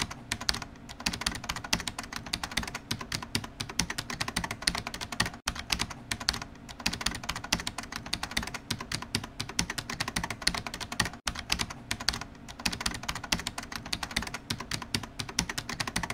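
Rapid, continuous computer-keyboard typing sound effect, many key clicks a second, with two brief breaks about five and eleven seconds in.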